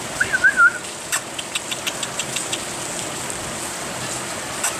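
Steady hiss of falling rain. A brief wavering high-pitched call comes near the start, followed by a quick run of light ticks.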